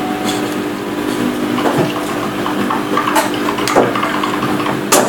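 Steady hum of a machine running in the room, under light clicks of plastic and metal as the servo case and needle-nose pliers are handled; the sharpest click comes just before the end.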